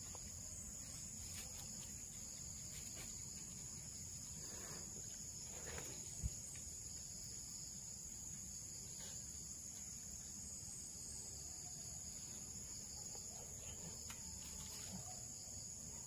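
Steady, high-pitched insect chorus, crickets or similar, running unbroken, with one short low knock about six seconds in.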